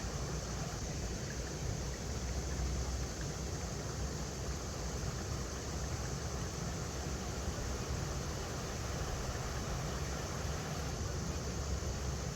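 River water flowing over rocks: a steady, even rush with a low rumble underneath.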